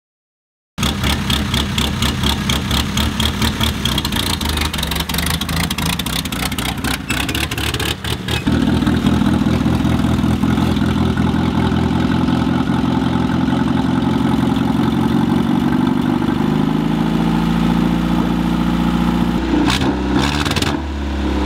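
Land Rover Series 3's 2.25-litre four-cylinder engine turning over in fast rhythmic pulses for several seconds. It catches about eight seconds in and settles into a steady idle.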